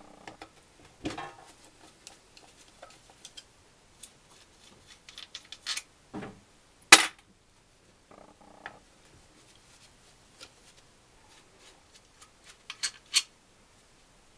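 Hand tools and metal engine parts clinking and clicking during the strip-down of an NSU Max 250 engine: scattered light clinks, with one sharp loud clink about seven seconds in and a quick pair near the end.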